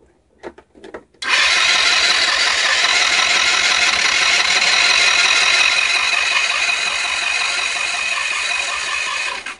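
GY6 150cc scooter engine cranking on its electric starter for about eight seconds without catching, then stopping abruptly: a no-start, although the plug is sparking and the carburetor is new. A few light clicks come just before the cranking begins.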